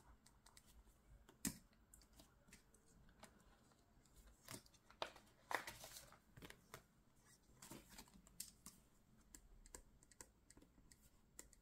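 Near silence broken by scattered faint taps and clicks of small objects handled on a tabletop, with a few sharper clicks around the middle.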